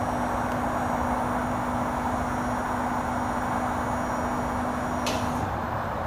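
Hydraulic power unit of a Stertil Koni Omer Vega 24-tonne parallelogram lift running while raising a truck: a steady hum over a constant rushing noise. About five seconds in, a short high hiss sounds and the hum stops.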